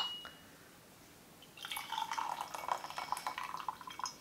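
A porcelain gaiwan's lid clinks once with a brief ring. About a second and a half later, tea pours from the gaiwan into a glass pitcher for about two and a half seconds, splashing and trickling as it fills.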